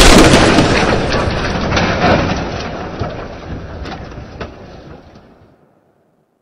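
Logo-intro sound effect: a dense rumbling clatter, loudest at first, that dies away over about five seconds, with a few sharp clicks along the way.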